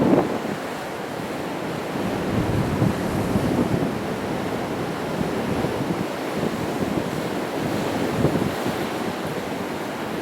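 Sea waves breaking and washing against rocks, a continuous surging rush, with wind buffeting the microphone.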